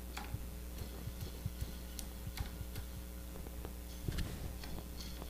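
Irregular light ticks and clicks from a small permanent-magnet commutator motor whose rotor is being turned by hand, its brushes riding over the commutator segments as it works as a generator.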